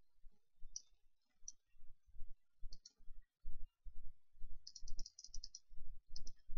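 Computer mouse clicks and keyboard taps while working at a desk: scattered sharp clicks, a quick run of them a little past the middle, over soft low knocks about three or four a second.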